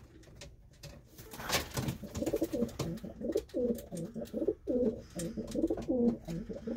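Racing pigeon cooing in a small loft: a long run of rolling coos, two or three a second, starting about two seconds in.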